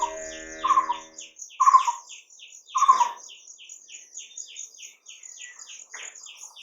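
Birdsong from a nature soundscape: a fast, steady series of high chirps throughout, with louder calls about once a second over the first three seconds. A held low tone stops just over a second in.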